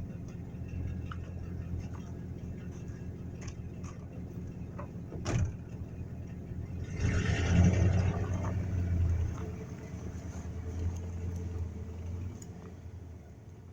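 Heavy vehicle engine running steadily, with a sharp knock about five seconds in and a louder rush of noise from about seven to nine and a half seconds.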